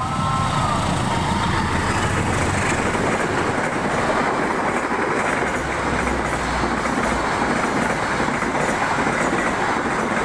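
A train passing close by: a loud, steady rumble of running and wheel noise, with a horn's pitched tone dying away in the first second.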